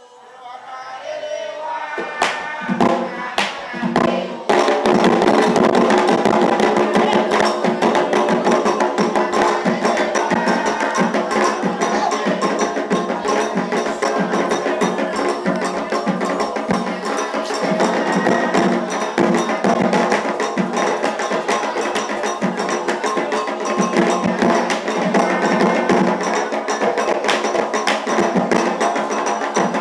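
Afro-Brazilian Candomblé ritual percussion: hand drums and a struck bell playing a dense rhythm. A few separate strikes come about two seconds in, and the full ensemble takes over at about four and a half seconds.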